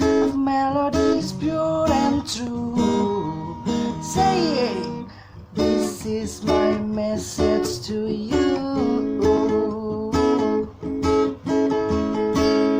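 Music: an acoustic guitar strumming chords in short, stop-start strokes.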